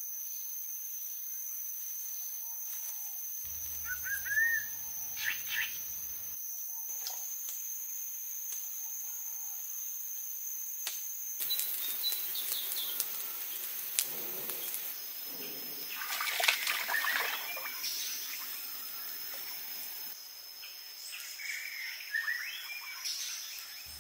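Forest ambience: birds chirping with short rising calls over a steady high-pitched buzz. From about halfway, irregular rustling and crackling noises with a few sharp clicks join in.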